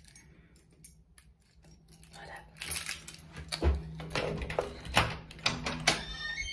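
Light clinking and rattling from things being handled, with several sharp clicks starting about two and a half seconds in, over a faint steady low hum.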